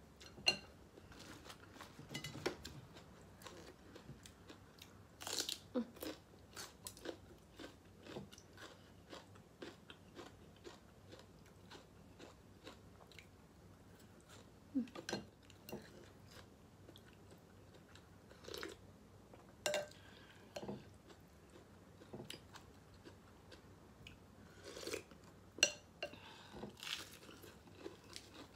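Close-up eating sounds of pho noodle soup with meatballs: wet chewing and biting, broken by scattered short clicks and a few louder mouth noises.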